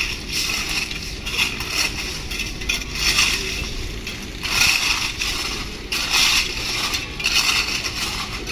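Railway track-changeover work: repeated crunching, scraping bursts about once a second over a steady low machinery rumble.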